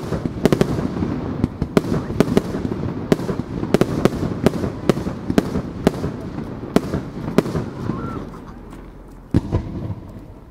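Aerial firework shells bursting in quick, irregular succession: sharp bangs over a rolling low echo. The barrage thins out near the end, with one more loud bang about nine seconds in.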